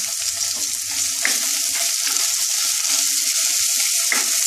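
Chopped onion, garlic and whole spices sizzling in hot oil in a nonstick kadai with a steady hiss. A wooden spatula starts stirring the pan near the end.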